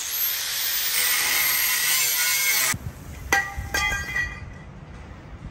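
Power tool cutting steel on the Jeep's frame, a steady harsh noise that stops suddenly about two and a half seconds in. Two sharp metal clanks follow, each ringing briefly, over a low rumble.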